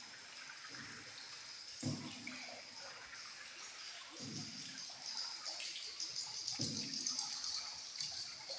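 Water sloshing and trickling around a boat in a cave, with a low surge about every two and a half seconds and faint voices.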